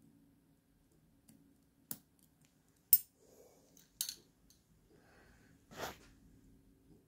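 Small metal clicks and taps as a metal link watch bracelet and a spring bar tool are handled, the loudest about three seconds in. A brief, duller noise follows near the end.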